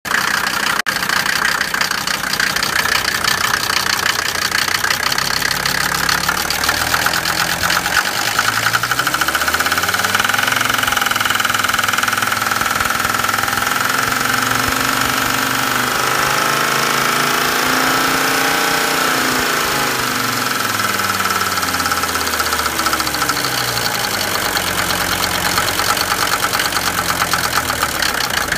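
Mercedes 190D Turbo's five-cylinder diesel engine running with a hard knocking, nailing clatter. It is slowly revved up from idle over about ten seconds, then drops back to idle. The noise came on after the injector O-ring seals were changed and comes with rough idle, pointing to an injector fault.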